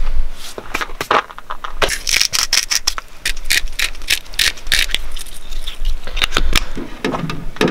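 A quick run of clicks, taps and rustles from food and utensils being handled as a burger is put together on a plate.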